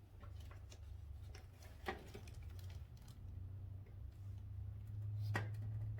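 Scattered light clicks and taps of hands working plastic turn-signal wiring connectors loose on a motorcycle, with two sharper knocks about two seconds and five seconds in, over a steady low hum.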